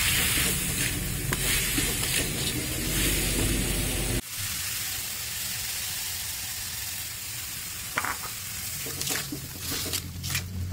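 Chopped spices and chillies sizzling in oil in an aluminium wok, stirred with a wooden spatula. About four seconds in the sound changes abruptly to a quieter sizzle. Toward the end the spatula scrapes and knocks against the wok several times.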